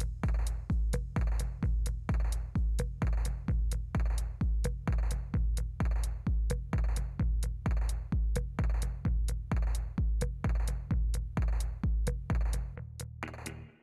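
Electronic background music with a steady drum-machine beat over a deep bass. The bass drops out near the end.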